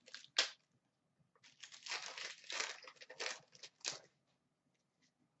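Foil wrapper of a 2015-16 Upper Deck Series 2 hockey card pack crinkling and tearing open. A brief crinkle comes at the start, then about two and a half seconds of crackly crinkling and ripping.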